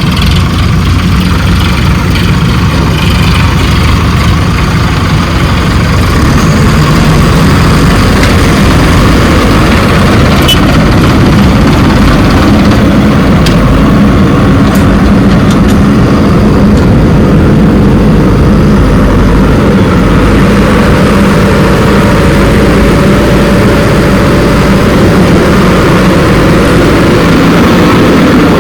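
Heavy diesel machinery engines running steadily, with a loud low engine rumble and a few faint knocks.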